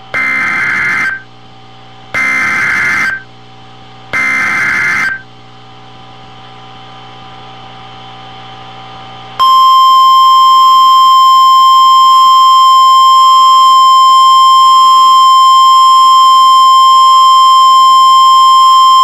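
NOAA Weather Radio Emergency Alert System signal: three one-second bursts of screechy two-tone digital data (the SAME alert header) about two seconds apart. After a pause of a few seconds comes the loud, steady single-pitch 1050 Hz warning alarm tone, held for about ten seconds. It signals that a tornado warning is being broadcast.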